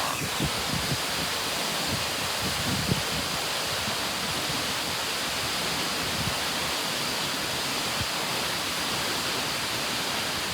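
Waterfall's steady rush of falling water, an even roar at a constant level throughout.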